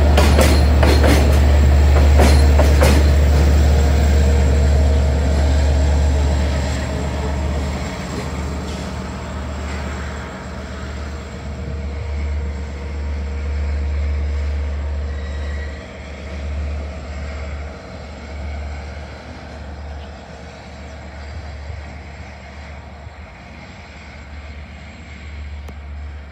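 LIRR DE30AC diesel locomotive passing at the rear of a train of bilevel coaches. It starts with a loud, deep engine rumble and sharp wheel clicks over the rail joints in the first few seconds. From about seven seconds in, the rumble fades as the train pulls away.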